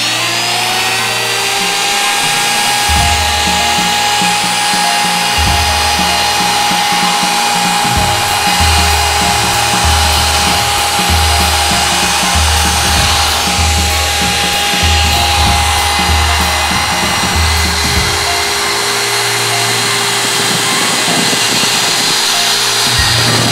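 Handheld electric wood router spinning up with a quickly rising whine, then running steadily at full speed as it cuts a quarter-round edge along a wooden rail. About two thirds of the way in, the pitch of the whine drops to a lower steady tone.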